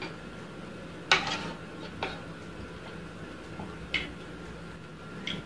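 Metal spoon clinking against dishes several times, sharp short clinks with a brief ring; the loudest comes about a second in.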